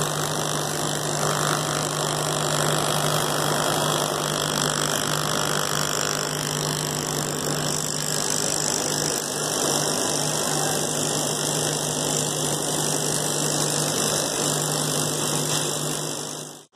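Hand-held electric spray gun running continuously, a steady motor hum under the hiss of liquid spraying onto an embroidery machine head's needle-bar parts to clean them. It cuts off abruptly just before the end.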